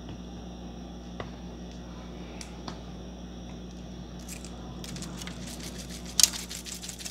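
Dry seasoning being sprinkled over a raw turkey in a foil roasting pan. A few faint ticks come first, then from about five seconds in a run of rapid light ticking, with one sharp tap near six seconds, all over a steady low hum.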